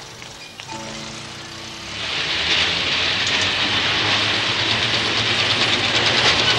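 Tram running along its track, a loud steady rushing and fast rattling with a low rumble that comes up about two seconds in, replacing a few seconds of music.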